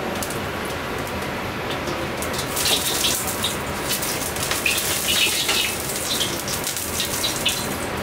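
A hot wok sizzling and crackling over a steady rush of water; the crackling sets in about two and a half seconds in and keeps up through most of the rest.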